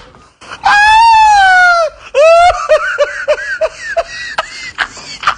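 A high-pitched voice gives a long wavering shriek that falls in pitch, then breaks into a quick run of short laughs, a comedy meme laugh sound effect.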